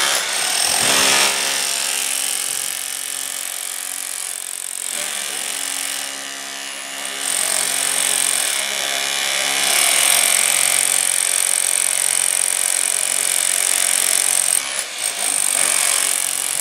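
Corded electric demolition hammer chipping old concrete and mortar off the top of a pool wall where the coping stones have been lifted. It runs steadily throughout, easing off briefly about five seconds in and again near the end.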